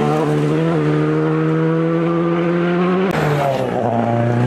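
Two rally cars on full power, one after the other. First a Škoda Fabia R5's engine is held at high revs with its pitch slowly rising for about three seconds. Then, after an abrupt change, a Ford Focus rally car's engine comes in at a lower pitch and climbs as it accelerates away.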